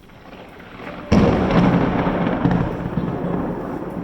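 A clap of thunder: a sudden loud crack about a second in, followed by a heavy rumble that carries on and slowly fades.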